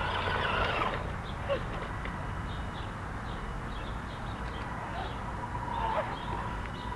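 Electric motor and drivetrain of an Axial SCX10 DeadBolt RC truck whining at low speed as it crawls over rocks, the whine coming and going with the throttle, with faint bird chirps behind.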